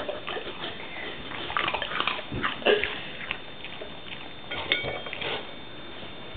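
A kelpie-coolie cross dog eating, making irregular wet mouth and chewing sounds in short clusters.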